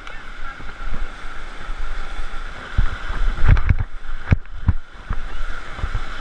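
Whitewater rapids rushing around a raft, with water and wind buffeting the microphone. A cluster of low thumps comes about three to five seconds in.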